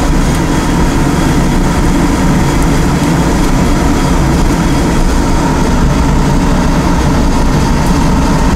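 Sonofresco 1 kg Profile fluid-bed coffee roaster running with its gas burner on: a loud, steady rush of hot air from the blower keeping the beans moving during first crack.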